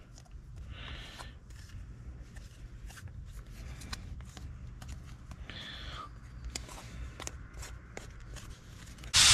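Light clicks, taps and rubbing of small plastic parts being pressed and handled, over a low steady hum. Just before the end, a loud blast of hissing air starts suddenly, blowing out glass shards.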